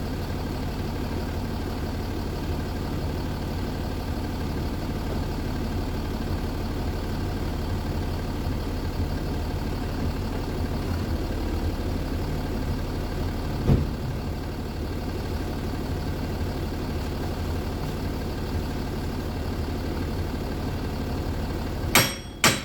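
A steady low machine hum, with a single knock about two-thirds of the way through. Near the end come two hard hammer blows on a seized Jaguar XF front wheel hub.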